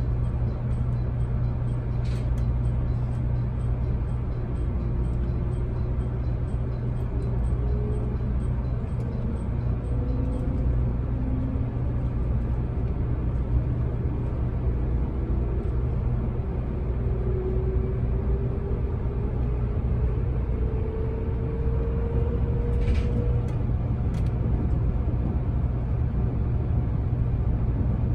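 JR Kyushu 783 series electric train running, heard from the cab: a steady low rumble of wheels on rail, with a faint whine that slowly rises in pitch through most of the stretch. Two light clicks stand out, one early and one near the end.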